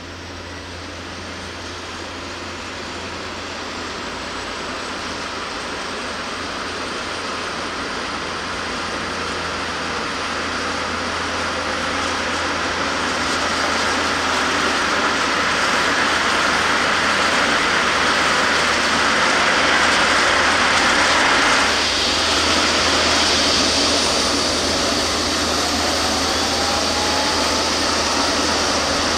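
ADAC Eurocopter EC135 rescue helicopter starting up: its turbines spool up with a rising whine as the main rotor gains speed. The sound grows steadily louder for about twenty seconds, then holds at a steady running level.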